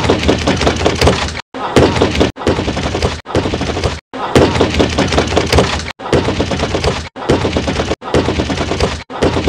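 Rapid, loud pounding of a fist on an apartment door. The sound is chopped into about eight repeated stutter-loops of about a second each, separated by abrupt cuts to silence.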